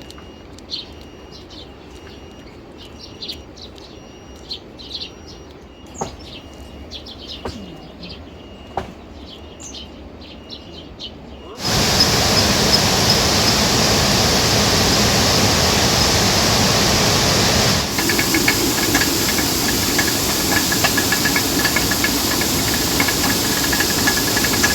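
Birds chirping faintly over a quiet background, with a few sharp clicks. About halfway through it cuts abruptly to a loud, steady hiss, and a few seconds later a rapidly pulsing high tone joins the hiss.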